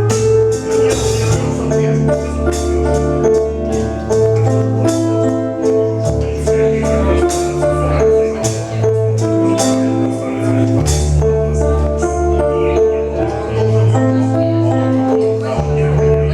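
Music: a track with a bass line, held melody notes and a steady run of light percussion hits.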